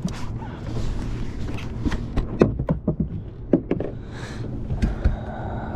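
Scattered knocks and taps of handling and moving about on a carpeted bass-boat deck, a few quick ones bunched about halfway through.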